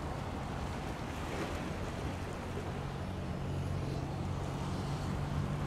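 Turboprop engines of two Bombardier CL-215T/415 water bombers flying low, a steady low drone that grows stronger over the last couple of seconds as the planes approach.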